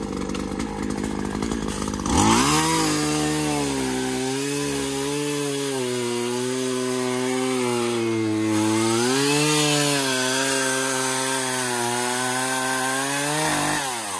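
Chainsaw idling, then revved up about two seconds in and cutting through a fallen pine log. Its engine note sags and recovers under the load of the cut, then falls back to idle near the end.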